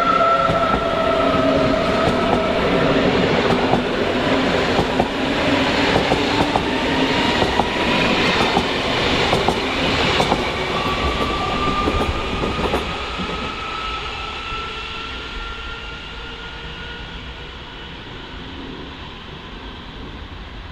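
Red electric S-Bahn multiple unit passing close by: its electric traction whine slides down in pitch while the wheels click over rail joints. The sound then fades as the train draws away, and a fainter whine rises again about halfway through.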